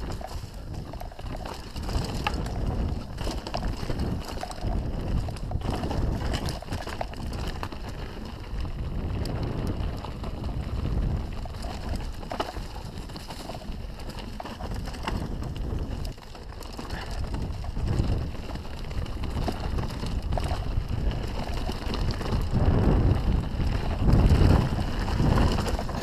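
Canyon Strive enduro mountain bike descending rough, rocky singletrack, heard from a camera mounted on the rider: wind buffeting the microphone over tyres rolling across stones and dirt, with the bike knocking and rattling over bumps. It gets louder near the end as the pace picks up.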